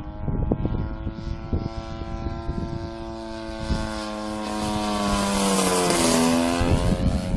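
Engine and propeller of a GoldWing 35%-scale Sbach radio-control aerobatic airplane flying past. The steady drone grows louder as the plane approaches, then drops in pitch as it passes overhead about six seconds in.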